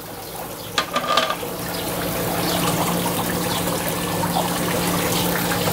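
Rib-eye steaks sizzling on a charcoal grill grate, a steady hiss that grows slightly louder, over a steady low hum. A few light clicks about a second in.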